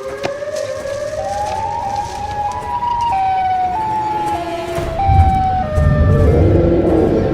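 Siren wail, the call of the Siren Head creature: a tone glides upward, then jumps between held pitches. A loud low rumble comes in about five seconds in.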